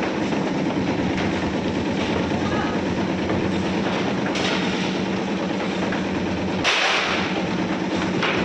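Bakery slicing machine running with a steady, rattling hum, with short sharp clatters of rusk slices and metal trays, the loudest a little before the end.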